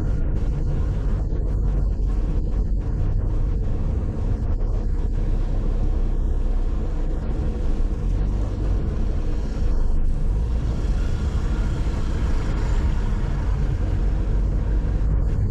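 Car driving along a road: a steady low rumble of engine and road noise, with a louder hiss of tyres or passing traffic from about two-thirds of the way through.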